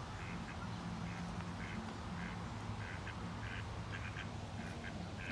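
Ducks quacking in many short, rapid calls while feeding, over a steady low hum.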